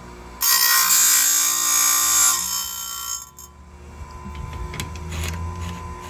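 Powerfist electric chainsaw sharpener's grinding wheel grinding a saw-chain tooth: a loud, high-pitched grinding screech that starts suddenly about half a second in, lasts about two seconds and fades out. The sharpener's motor hums on quietly afterwards.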